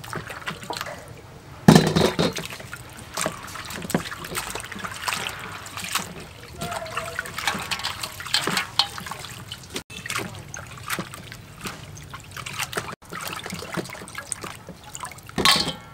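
Vegetables being rinsed by hand in a steel basin of water: irregular splashing, sloshing and trickling as leafy greens are swished and lifted out dripping, with the loudest splash about two seconds in.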